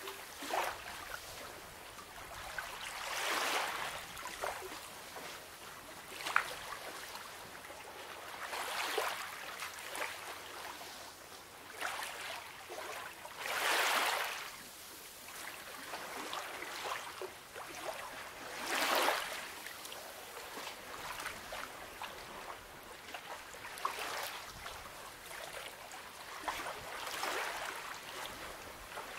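Small waves of a calm sea washing in on the shore, each a soft hiss that swells and fades, the strongest about five seconds apart, with a steady fizz and trickle of water between them.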